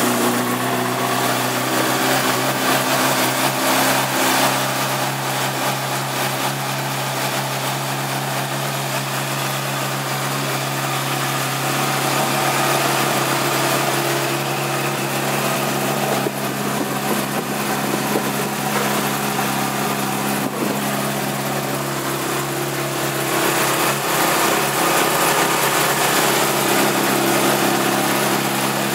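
Honda CBR600RR's 599 cc inline-four idling steadily just after start-up.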